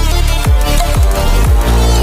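Loud electronic dance music with a heavy bass line and falling bass drops.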